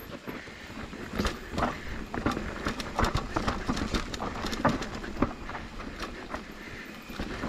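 Downhill mountain bike rattling over a rough, rocky dirt trail: tyres on dirt and rock, with a steady stream of irregular knocks and clatters from the bike.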